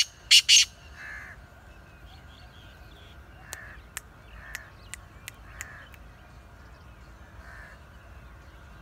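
Black francolin calling: two loud, harsh, grating notes right at the start, then a few faint notes mixed with sharp clicks a few seconds later.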